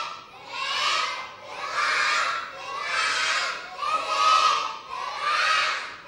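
A class of young children counting aloud together in unison, calling out one number about every second in a steady chant.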